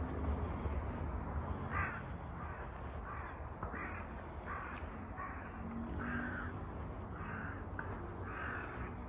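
A crow cawing in a quick run of about a dozen short, harsh caws, roughly two a second, starting about two seconds in.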